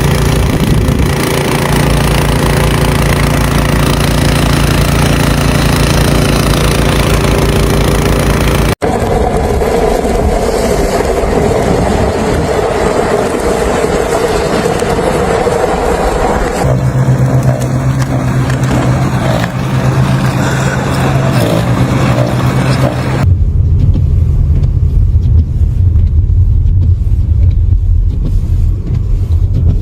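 Motor vehicle engines running, in several separate clips cut together: a steady engine drone, then a noisier stretch, then a steady low hum, and finally a deep rumble.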